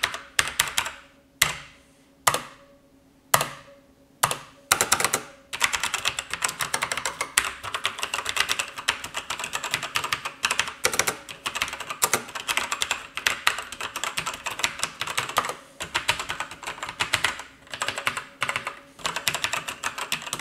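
Sharkoon Skiller Mech SGK1 mechanical keyboard with Kailh Brown switches being typed on with one hand: a few separate keystrokes, then from about five seconds in, fast continuous key presses.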